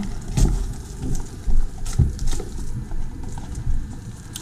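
Small cardboard blind boxes being handled and plastic packaging crinkling as they are opened, with a few dull knocks on the table.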